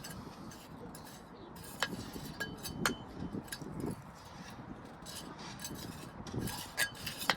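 Patio pavers being set by hand on a soil bed: gritty scraping and shuffling with a few sharp clinks as paver meets paver.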